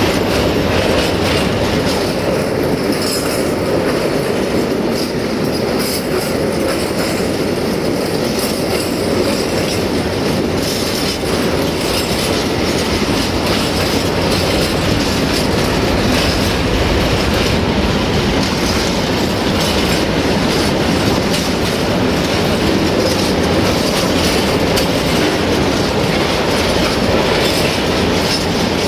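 Grain hopper wagons of a long freight train rolling past close by: a steady, loud rumble of steel wheels on the rails with a rhythmic clatter as the wheels cross the rail joints.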